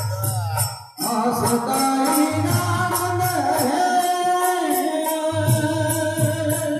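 Live devotional bhajan singing at a jagran: a male voice singing long held notes through a microphone, with jingling hand percussion keeping a steady beat. The sound drops out briefly about a second in.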